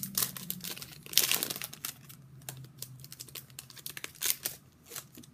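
Hockey card pack wrappers crinkling and being torn open by hand, loudest and densest about a second in, then lighter handling. A low hum sits under the first two seconds.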